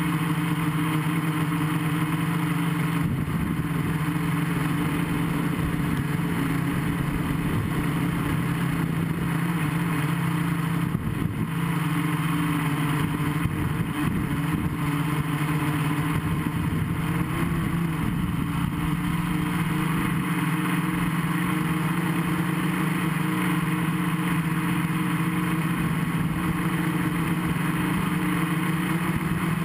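Gaui 500X quadcopter's brushless electric motors and propellers buzzing steadily in flight, heard from the on-board camera over a constant hiss, the pitch wavering a little around the middle.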